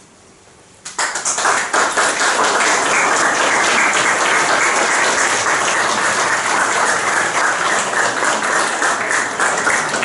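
Audience applauding: many people clapping together. It starts suddenly about a second in and stays steady and dense.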